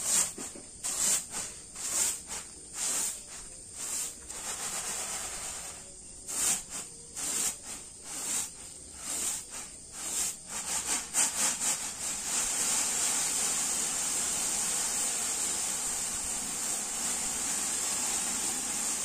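Corn grits being winnowed in a round woven bamboo tray: a rhythmic run of rattling swishes, one or two a second, as the grits are tossed up and caught. About two-thirds through, this gives way to a steady hiss of grits sliding as the tray is worked flat.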